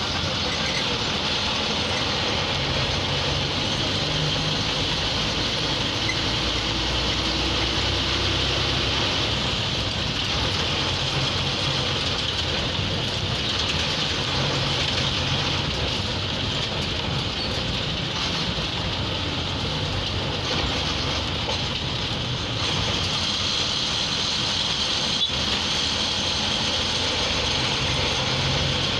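An MSRTC bus's diesel engine running steadily under way, heard from inside the driver's cabin, mixed with road and cabin noise.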